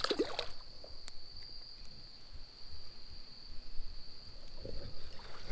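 Steady, high-pitched insect chorus droning without a break, over faint outdoor background noise, with a single small click about a second in.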